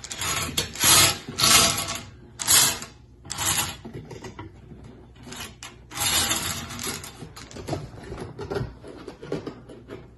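Hand-cranked wire bingo cage turning, the plastic balls inside tumbling and rattling against the wire. The rattle comes in short bursts at first, then a longer run about six seconds in.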